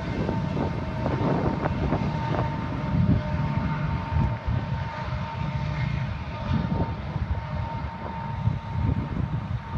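BNSF loaded coal train rumbling as it moves away, with a thin steady high tone over the low rumble and wind buffeting the microphone.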